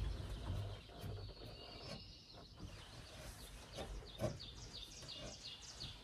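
Songbirds singing in woodland, with a quick run of short, high, falling chirps in the last two seconds, over a low rumble of wind.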